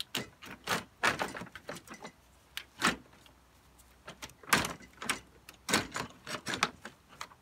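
Plastic electric fan shroud of a Honda CR-V scraping and knocking against the radiator and support brackets as it is worked side to side out of the engine bay, its small lips catching on the parts around it: a string of irregular scrapes and knocks, the loudest about three and four and a half seconds in.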